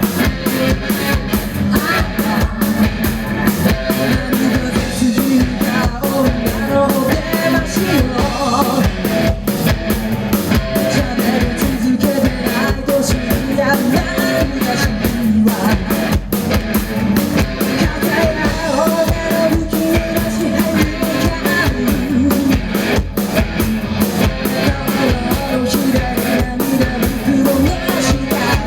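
Rock band playing live: a drum kit keeps a steady, driving beat under electric guitars.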